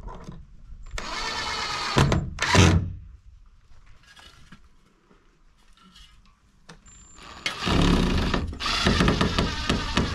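Cordless drill driving wood screws into the coop's timber frame. It runs in two spells: a short one about a second in with a quick burst after it, and a longer run of about three seconds near the end.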